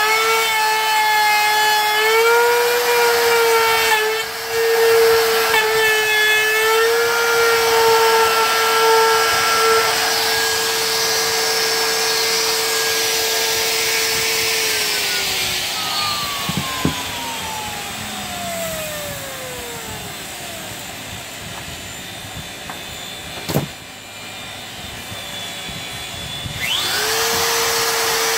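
DeWalt compact router running at full speed while trimming the edge of a plywood frame, its whine dipping slightly a few times as it cuts. About halfway it is switched off and winds down with a long falling whine, there is a single sharp knock, and near the end it is switched back on and comes up to speed quickly.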